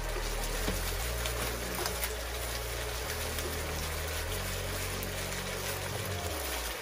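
Steady sizzling of hot oil in a frying pan as frozen broccoli and cauliflower florets are tipped in on top of stir-fried chicken.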